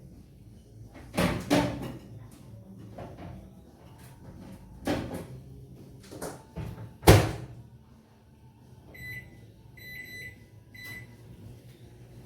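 Knocks and clunks of a microwave oven door being handled and shut, the loudest about seven seconds in, then the microwave beeping three short times near the end.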